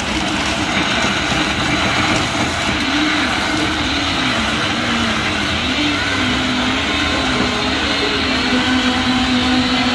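Countertop blender running steadily, blending a coconut smoothie. Its motor pitch wavers up and down as the contents churn.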